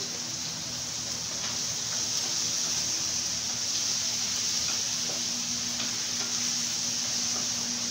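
Chicken pieces frying in hot oil in a frying pan, with a steady sizzle and the light scrapes of a wooden spatula stirring them.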